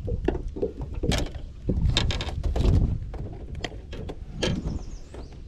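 Scattered knocks and clicks of fishing gear being handled in a boat, over a steady low rumble.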